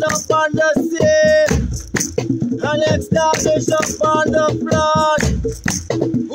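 A chant sung by a man's voice in long held notes, with a maraca shaken in a steady beat alongside.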